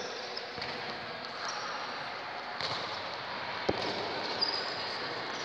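Noisy sports-court background with faint distant voices, and a single sharp thud of a football about two-thirds of the way in.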